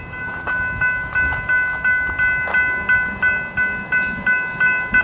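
Railroad grade crossing warning bell ringing steadily, about three strikes a second, each strike ringing out and fading before the next.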